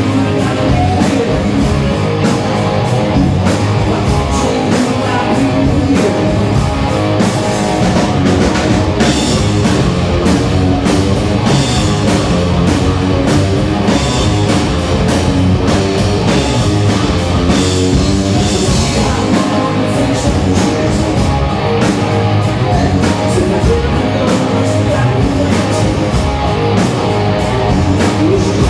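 Rock music with electric guitar and a drum kit keeping a steady beat, played loud and continuous.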